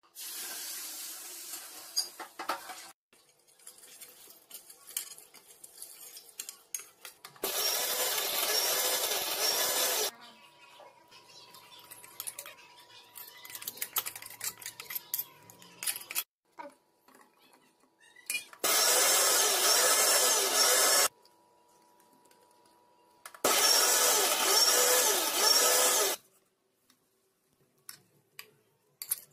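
Electric mixer grinder (mixie) run in short pulses: a softer run first, then three loud runs of about two and a half seconds each, grinding the spice-and-coconut masala into a paste. Between the runs there is faint clatter and knocking.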